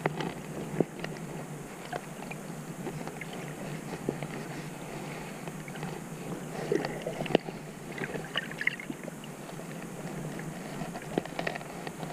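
Underwater sound heard through a submerged camera: a steady muffled water rush, broken by frequent irregular sharp clicks and crackles and a few brief higher chirps.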